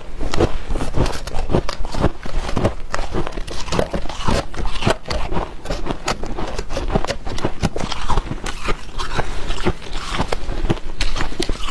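Dry freezer frost crunching and squeaking in rapid, irregular crunches as it is chewed and squeezed in gloved hands.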